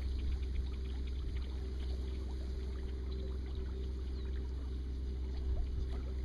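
A boat motor runs with a steady low hum while the boat moves slowly. Faint scattered ticks sit above it.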